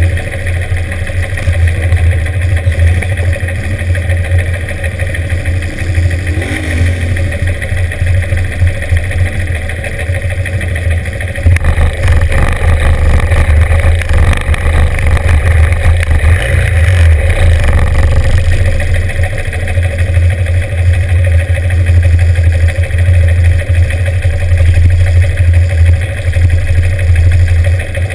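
Classic motorcycle engines idling in a start queue. About twelve seconds in the engine noise turns louder and rougher for several seconds as one is revved, then settles back to a steady idle.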